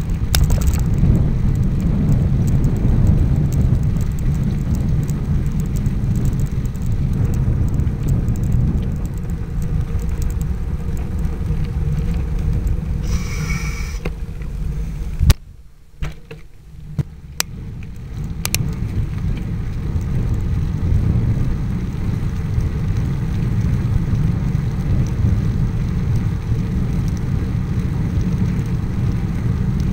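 Wind buffeting the microphone of a bicycle-mounted camera while riding, a steady low rumble. Halfway through there is a brief higher sound, then a sharp click, after which the rumble drops away for two or three seconds with a few more clicks before it comes back.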